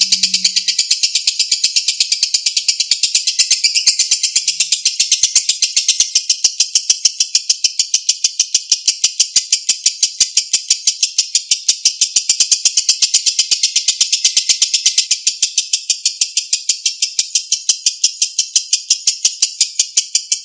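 Lovebird giving a long ngekek: one unbroken, high-pitched, rapid chattering trill of evenly repeated notes, several a second.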